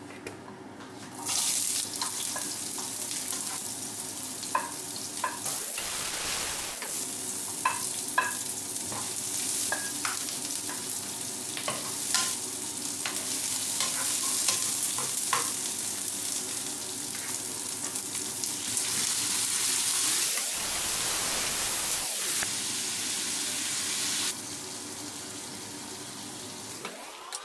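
Onion, garlic, ginger and chili sizzling in hot oil in a non-stick wok, stirred with a wooden spatula that gives scattered taps and scrapes. The sizzle starts about a second in and drops off sharply near the end.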